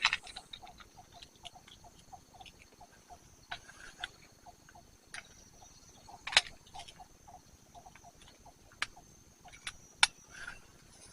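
Scattered sharp clicks and taps of handling, the loudest about six and ten seconds in, over a faint steady high insect drone and a soft, quickly repeated low chirping.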